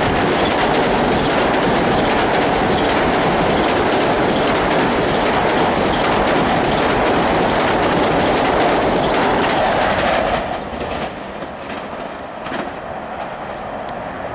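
Long Island Rail Road train passing through the station at speed, its wheels clattering over the rail joints. About ten seconds in the loud rush drops off sharply as the last car goes by, leaving a few fading clacks.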